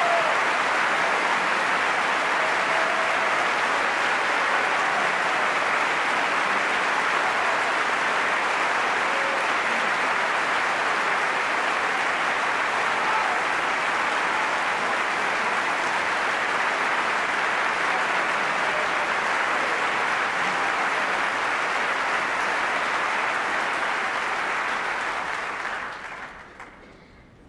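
Opera-house audience applauding, a dense, steady applause that fades out near the end.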